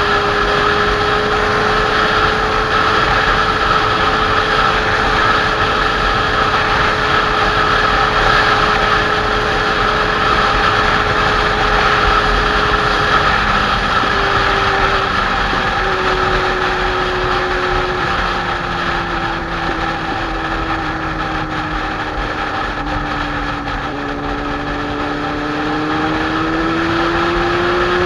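Kawasaki Z800's inline-four engine running at a steady cruise, with wind rushing over the microphone. About halfway through the engine note falls as the bike eases off, then rises again near the end as it picks up speed.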